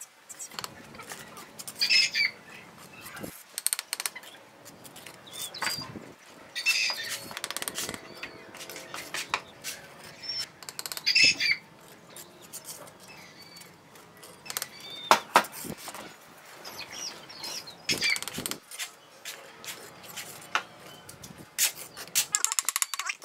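A steel bricklaying trowel scraping wet cement mortar and tapping red clay bricks into place. Light irregular knocks are broken every few seconds by a louder, ringing scrape.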